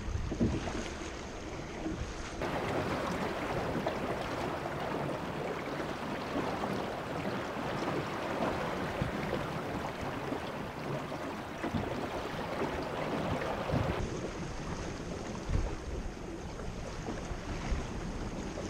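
Water rushing and splashing along the hull of a small O'Day Osprey sailing dinghy running downwind through short, steep waves, with wind buffeting the microphone. The rush changes in character from about two seconds in until about fourteen seconds, and a few low thumps come near the end.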